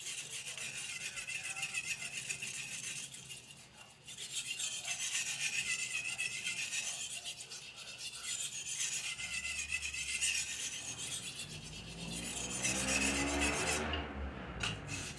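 Knife blade sharpened by hand on a sharpening stone: steady, rhythmic rasping strokes with a short pause about three or four seconds in. Near the end a lower sound with a shifting pitch joins in, louder than the strokes.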